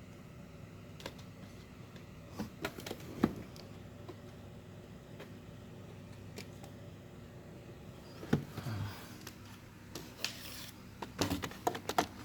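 Car engine idling with a steady low hum, with scattered clicks and knocks from hands and tools working in the engine bay: a few about two to three seconds in and a quicker run of them near the end.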